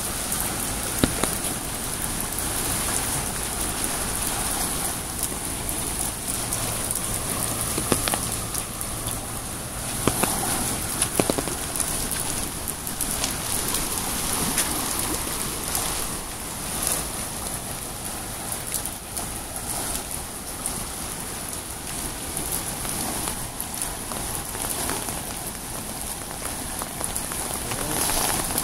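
Heavy rain falling in a steady hiss, with occasional sharp taps close by.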